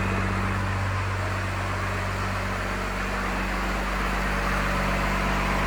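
Rebuilt Cummins diesel engine running at a steady idle just after its first start, even and unchanging.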